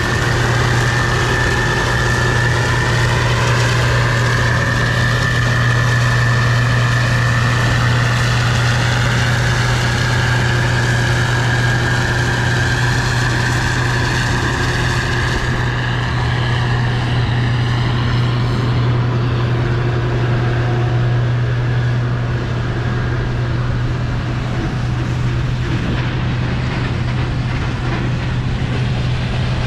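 Case IH 2388 Axial-Flow combine running steadily, a strong low hum with a high whine on top that fades out about halfway through.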